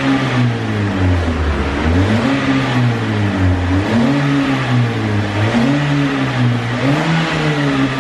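Toyota Yaris four-cylinder engine revved repeatedly through an aftermarket NDK Pro-Drift muffler, with the stock resonator and header still fitted. The pitch climbs and falls back about every one and a half to two seconds. The exhaust note is still soft and mellow, which is put down to the long, large stock resonator.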